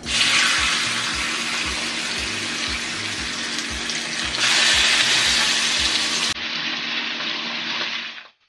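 Seasoned chicken pieces sizzling as they are laid into hot oil in a stainless steel frying pan to sear. The sizzle starts suddenly, gets louder when a second piece goes in about four seconds in, turns quieter about six seconds in and cuts off just before the end.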